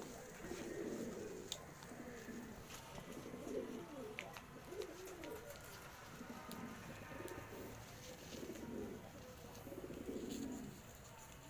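Fancy pigeons, fantails among them, cooing over and over in low, repeated calls, with a few short clicks among them.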